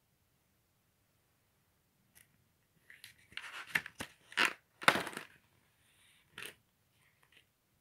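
Sketchbook paper page being turned by hand: a run of short rustling, crinkling scrapes, loudest about halfway through, with a few softer rustles near the end.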